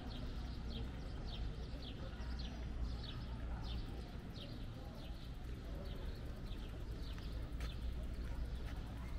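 A small bird calling over and over with short, high, downward-sliding chirps, about two a second, growing fainter after about four seconds, over a steady low rumble.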